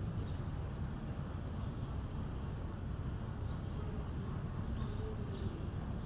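Steady low outdoor rumble, with faint short bird chirps now and then.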